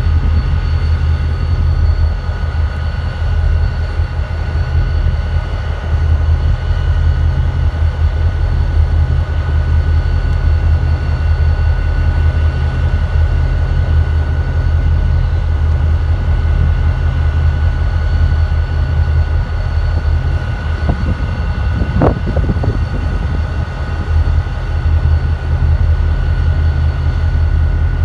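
EMD two-stroke diesel locomotives idling: a steady, loud low drone with a faint steady whine above it. A brief higher-pitched sound rises and falls about three-quarters of the way through.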